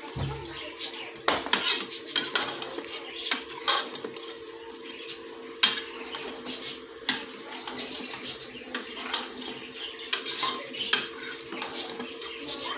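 Metal ladle scraping and clanking irregularly against the inside of an aluminium pressure cooker as black chickpeas are stirred and roasted in ghee.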